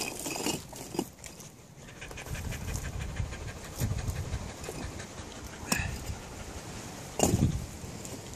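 A dog panting steadily, with a few sharp knocks of rocks being moved and set into a fire ring, the heaviest a thump near the end.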